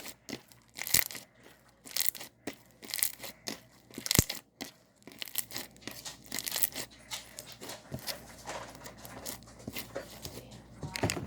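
Slime being handled and squished by hand, giving irregular crackling and crinkling sounds.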